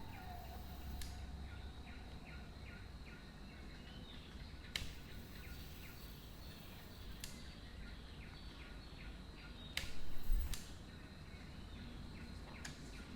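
Faint outdoor background: quick, evenly repeated chirping at about three a second, a steady thin high tone, and a low rumble. A few sharp clicks, and a brief louder low bump about ten seconds in.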